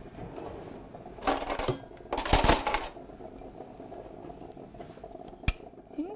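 Cutlery scraping and clinking on a china plate: two loud scrapes of about half a second each, then a single sharp clink near the end.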